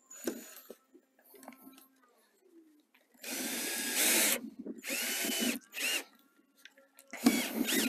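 Power drill driving stainless Phillips-head screws into the dock's wooden frame, running in short bursts a few seconds in and again near the end, after faint handling clicks.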